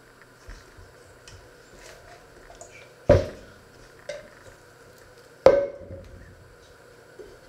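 Stainless steel mixing bowl clanking as dough is kneaded and worked by hand in it: two sharp knocks with a short metallic ring about three and five and a half seconds in, a lighter one between, and soft dough handling around them.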